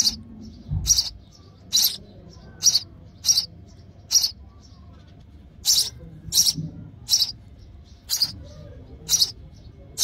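House sparrows chirping: short, sharp chirps repeated about once a second, with a brief break near the middle.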